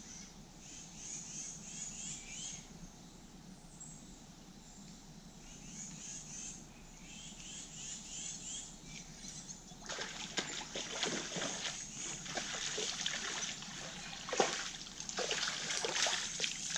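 A hooked crappie splashing at the water's surface as it is reeled in to the shore, a run of irregular splashes starting about ten seconds in. Before that, a bird's short repeated chirps are the main sound.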